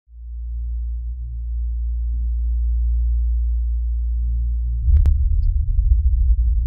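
Deep synthesized bass drone of a video intro, fading in at the start. About five seconds in a single sharp click hits and the low bass turns into a rapid pulsing.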